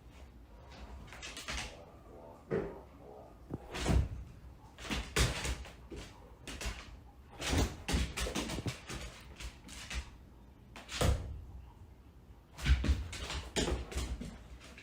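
Repeated, irregular knocks and thumps, some in quick clusters, like a door or cupboard door being banged.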